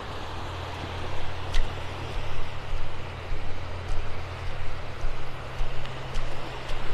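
Surf washing over the shallows under a steady low rumble of wind on the phone microphone.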